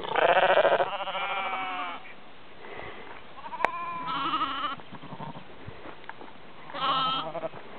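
Sheep bleating: a loud bleat at the start running straight into a second, then two more a few seconds apart, each with a quavering pitch.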